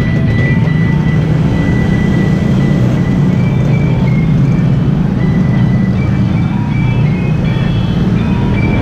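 Dense traffic of small motorcycles and cars moving through an intersection, a steady low rumble of many engines, with music playing over it.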